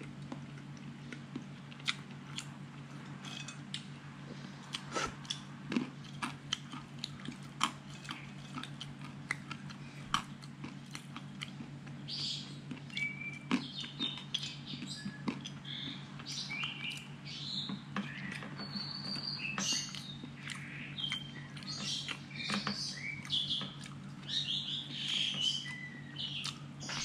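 Close-up chewing of peanuts and hard-boiled egg, with many small crunches and mouth clicks, over a steady low hum. From about halfway through, birds chirp in short calls.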